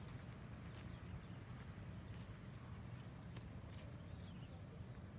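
Faint outdoor dawn ambience: a steady low rumble with scattered short chirps and clicks, and a thin high-pitched trill that comes in about two seconds in.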